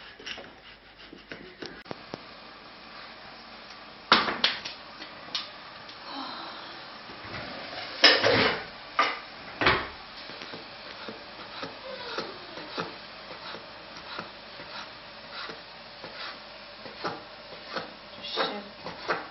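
Kitchen work on homemade pasta dough: a wooden rolling pin rubbing over dough on a floured counter, sharp knocks about 4 and 8 seconds in as a wooden board is handled, then a knife tapping through rolled dough on the wooden board as it is cut into noodles.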